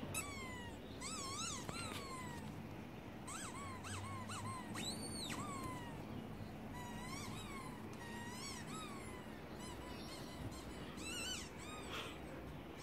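A run of faint, short squeaks, each rising and falling in pitch, coming from a laptop's speaker.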